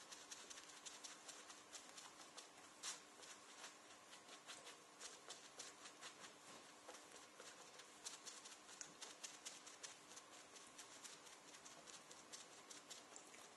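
Faint, irregular light tapping, several taps a second, of clear lacquer sealer being dabbed onto a leather jacket.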